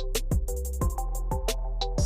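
Background electronic music with a steady drum-machine beat and synth notes.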